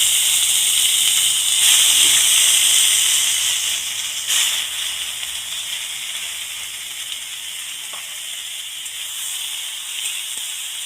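Chopped tomatoes sizzling in hot mustard oil in a kadai just after they are tipped in. The hiss is loud at first and dies down steadily after about four seconds.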